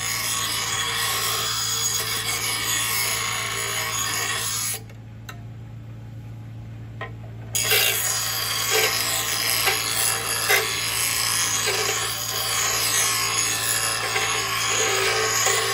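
Bench grinder running with a steady motor hum while a steel garden-shears blade is ground against its wheel, a harsh hissing rasp as the blade is sharpened. About five seconds in, the blade comes off the wheel for roughly three seconds, leaving only the motor hum, then grinding resumes with a few sharp ticks.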